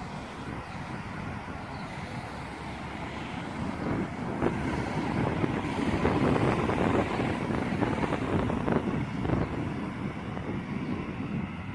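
Wind buffeting the microphone, mixed with leaves rustling in the tree overhead; it swells for several seconds from about four seconds in, then eases.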